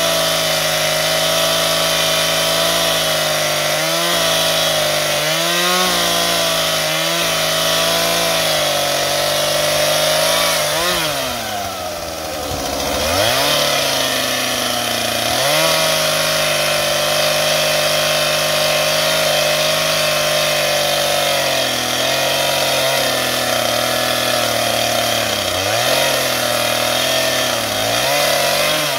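STIHL MS 251 Wood Boss two-stroke chainsaw running at full throttle while cutting into a tree trunk, its engine speed dipping briefly several times under load. A little before halfway it drops off sharply and revs back up.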